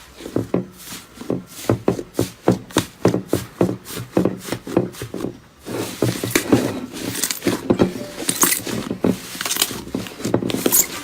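Slime being squished and pressed by hand: a quick run of sticky pops and crackles, several a second, growing denser after about six seconds.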